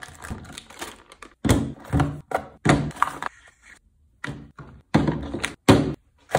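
A quick series of about eight hard thunks and clacks as a gas-blowback airsoft pistol, its magazines and packaging are unpacked and set down on a tabletop.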